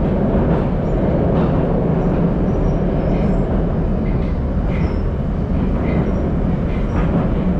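Cabin noise of a Moscow Metro 81-775/776/777 train running through a tunnel: a steady loud rumble of wheels and running gear on the rails, with faint short high squeaks and ticks now and then.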